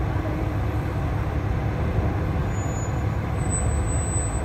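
Heavy tractor-trailer truck's diesel engine running with a steady low rumble as the truck moves slowly.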